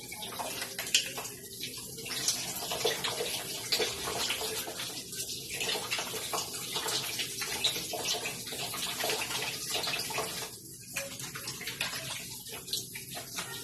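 Water running from a tap while hands are washed under it, the splashing stream changing unevenly as the hands move in and out of it.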